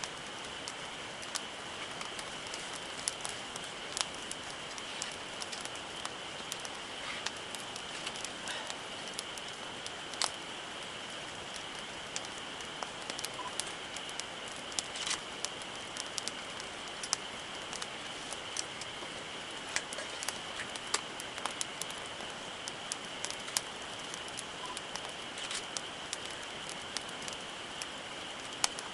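Wood campfire crackling: irregular sharp pops and snaps over a steady hiss, with a faint high whine running underneath.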